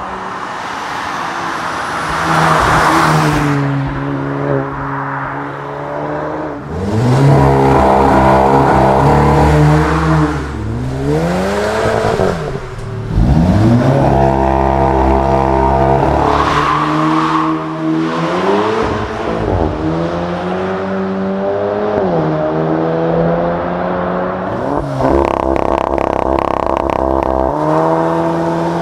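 Volkswagen 2.0 TSI turbocharged four-cylinder with stock exhaust and petrol particulate filter, revving repeatedly. The pitch climbs and falls back several times, with two quick sharp rises and drops near the middle, and a short spell of crackling near the end.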